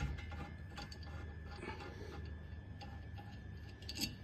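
Faint, light metallic ticks and clicks as the rear brake caliper bolts are unscrewed, with a slightly louder click near the end.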